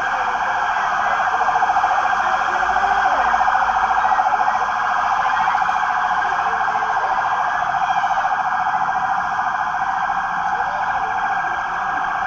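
Police car sirens sounding without a break, a loud, rapidly pulsing tone held steady.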